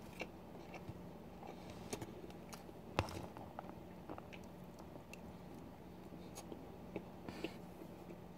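Close-miked chewing and mouth sounds of a person eating a macaroni, rice and chicken goulash with a metal spoon from a plastic tub, with a few sharp clicks scattered through, the loudest about three seconds in.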